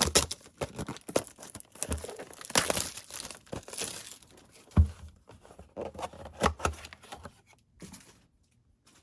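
Trading card pack wrappers being torn open and crinkled in irregular bursts, with a single knock about five seconds in.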